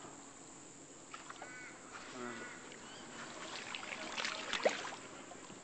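A crow cawing a few times in short calls, with a cluster of clicks and knocks about four seconds in.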